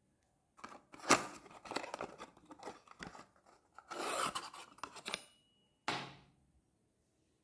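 Small cardboard box being opened by hand and a halogen headlight bulb slid out: rustling and scraping of the card, with a sharp snap about a second in and one more short knock near the end.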